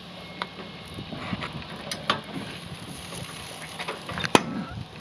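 A few sharp clicks and knocks of food being handled on the metal grate of a gas barbecue grill, the loudest about four seconds in, over a steady background noise.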